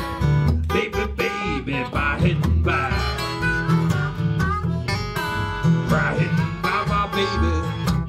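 Eastman acoustic guitar playing a Delta blues passage, steady bass notes pulsing under picked treble notes.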